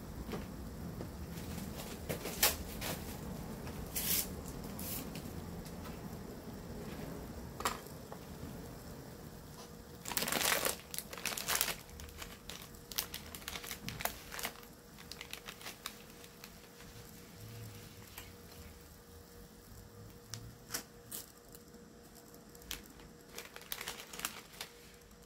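Plastic packet of dried noodles crinkling and being torn open, a dense burst of crackling about ten seconds in, with scattered sharp clicks around it. Beneath it, water bubbling at a boil in a pot on an electric hob.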